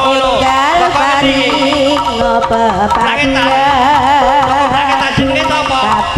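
Live Javanese jaranan music: a high melody with wavering pitch over hand-drum strokes and steady held low tones.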